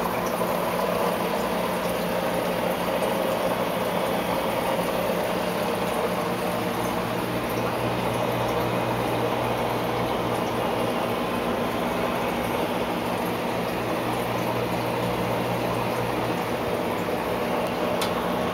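Aquarium filter running: a steady trickle and splash of water with a low, even motor hum underneath.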